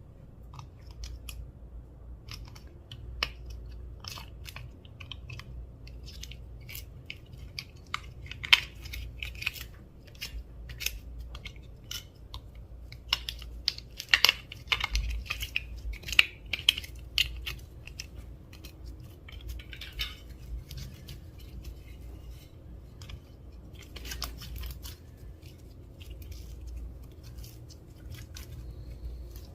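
Clear slime being worked by hand, with many irregular sticky clicks and crackling pops that come thickest in the middle.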